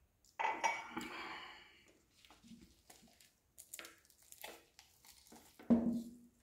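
A whole roasted chicken being torn apart by hand: crisp skin crackling and meat ripping in short bursts, with the loudest rip near the end as a leg is pulled off.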